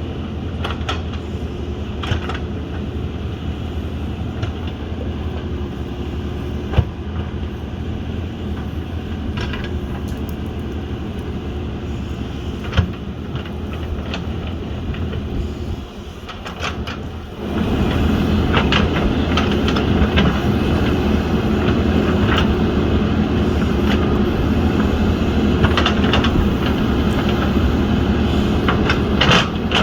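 JCB backhoe loader's diesel engine running steadily, with scattered clanks and knocks. About 16 seconds in it dips briefly, then runs louder for the rest, as if revved up under load.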